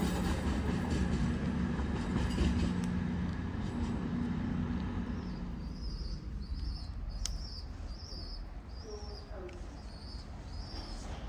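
Class 220 Voyager diesel multiple unit's underfloor engines running with a steady hum, fading away over the first five seconds as the train leaves. After that it is quieter, with a high chirp repeating about once a second.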